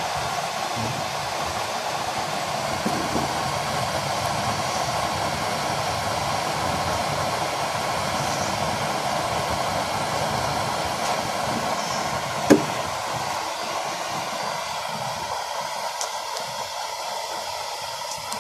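Used-oil burner stove running with its electric blower fan forcing air into the burner: a steady rushing noise, the flame burning hot and blue. A single sharp click about two-thirds of the way through.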